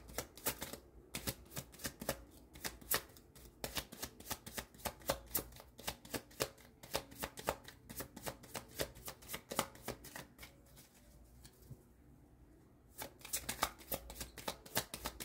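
Tarot cards being shuffled by hand: a rapid run of crisp card flicks, easing to a short lull about three-quarters of the way through before picking up again.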